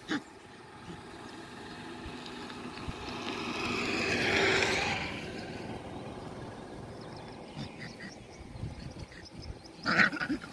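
A vehicle passing on the road, its noise swelling to a peak about halfway and then fading away. A brief, sharp sound comes near the end.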